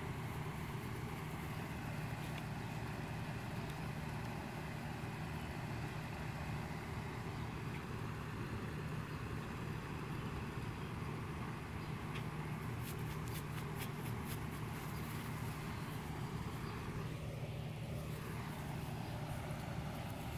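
Steady low rumble at an even level, with a few faint clicks about two thirds of the way through.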